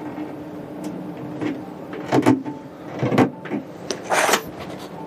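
Handling noises as orange plastic air tubing is worked into the push-in fittings of a pneumatic cabinet's valves: a few short knocks and clicks about two and three seconds in, then a brief hiss-like rustle just after four seconds. A steady low hum runs underneath.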